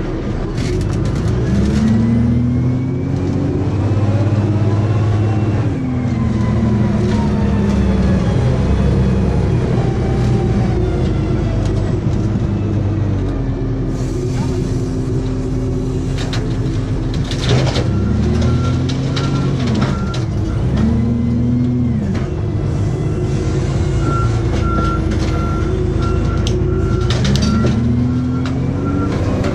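Diesel engine of a heavy forklift-style car loader working under load as it carries a stack of crushed cars. Its revs rise and fall again and again, with a few metal clanks about two-thirds of the way in. A reversing alarm beeps steadily near the end.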